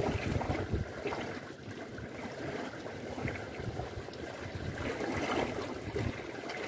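Sea water lapping and sloshing against the concrete base of a breakwater, over an uneven low rumble of wind on the microphone.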